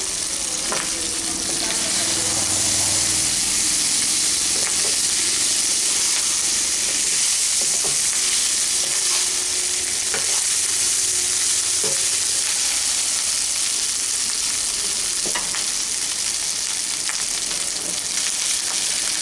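Cooked basmati rice and vegetables sizzling in hot oil in a nonstick wok as a spatula stirs them, with a steady hiss and a few sharp clicks of the spatula against the pan.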